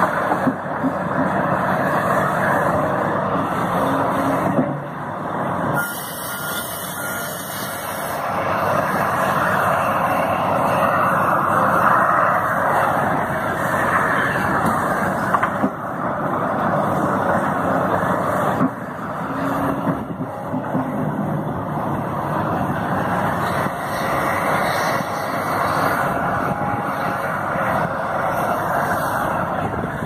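Large Volvo crawler excavator running under load, its engine and hydraulics rising and falling as it swings and dumps buckets of dirt and rock into a dump truck bed, with a few sharp knocks. A short string of faint beeps comes about six seconds in.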